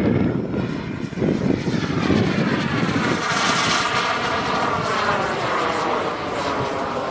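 Turbine engine of a small jet flying past, a rushing whine whose pitch bands sweep up and down as it passes, strongest about three to four seconds in.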